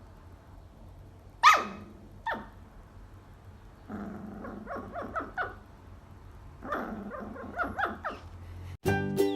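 A dog barking: two sharp barks, the first the loudest, then two runs of quick, short barks and growls.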